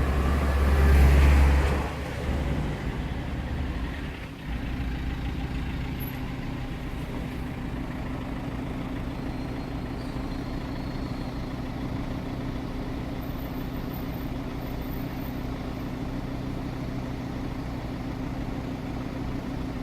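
Audi RS3's turbocharged five-cylinder engine idling steadily while stopped, a sound the owner calls abnormal; a louder low rumble fills the first two seconds, and the level dips briefly around four seconds in before the idle settles.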